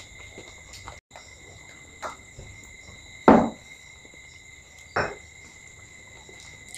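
Sounds of eating at a table: a few short sudden knocks or crunches, the loudest about three seconds in and a smaller one about five seconds in, over a steady high-pitched whine.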